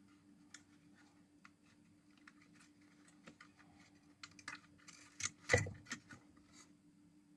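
Light clicks and taps of small tools being handled at a workbench, with a louder clatter about five and a half seconds in, over a faint steady hum.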